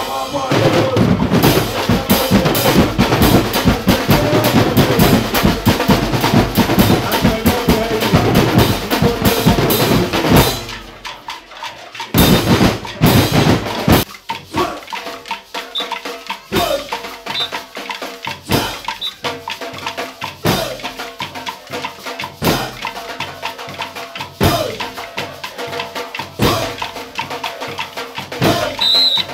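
Carnival drum band of big stick-played drums, dense and fast, breaking off suddenly about ten seconds in. After the break the drums come back sparser, with a heavy stroke about every two seconds and lighter beats between.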